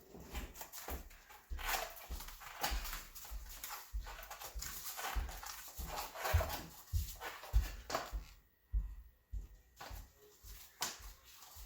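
A 26-inch mountain bike tire being worked onto the rim by hand: the rubber scuffs and squeaks against the rim, with irregular knocks and bumps.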